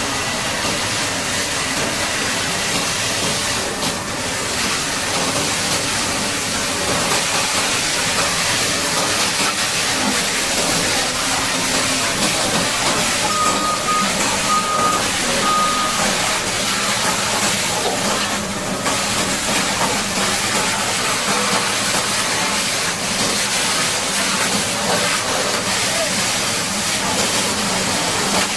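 High-pressure water jet hissing steadily as it sprays a Caterpillar D8T bulldozer during washing. Four short high beeps come about halfway through.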